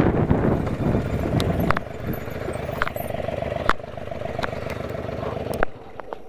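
Wind buffeting the microphone at first, then a motorcycle engine running steadily. Sharp clicks run through it, and it cuts off suddenly near the end.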